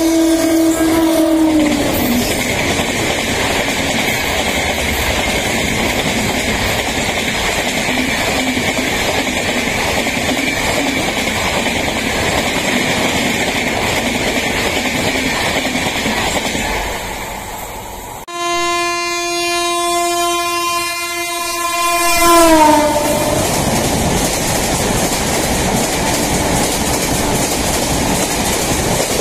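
WAP-7 electric locomotive horns and passing express trains. The first horn drops in pitch about a second and a half in as its locomotive goes by, followed by a long steady rush and clickety-clack of coaches passing at speed. After a sudden cut, a second WAP-7's horn sounds for about four seconds and slides down in pitch as it passes, then its coaches rush by.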